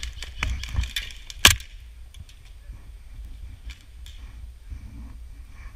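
Airsoft gear rattling with a run of sharp clicks in the first second and a half, ending in one loud crack. After that come a few scattered clicks over a low rumble of handling noise.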